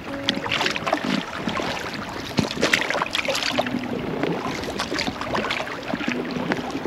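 Water splashing and sloshing in quick irregular bursts around a kayak being paddled.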